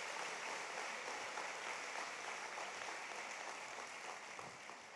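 Congregation applauding, a steady patter of many hands clapping that slowly dies away near the end.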